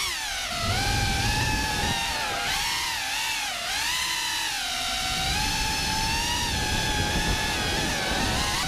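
Cinewhoop FPV quadcopter's brushless motors and ducted propellers whining in flight, the pitch rising and dipping with the throttle, over a low rumble of prop wash.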